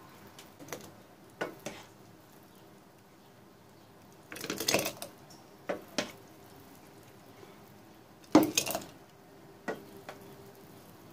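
A metal ladle clinking against a pot and thick hot cherry jam plopping and splashing through a plastic funnel into a glass jar. The sounds come as separate knocks and splats, with the loudest bursts about four and a half and eight and a half seconds in.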